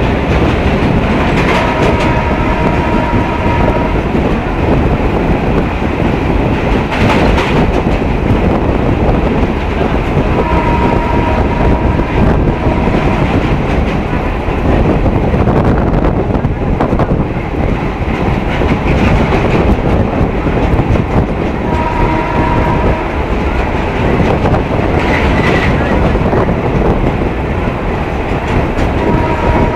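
A train running steadily across a steel truss bridge, heard through an open carriage doorway: a constant loud rumble and rattle of wheels on rail. A steady high tone comes and goes a few times.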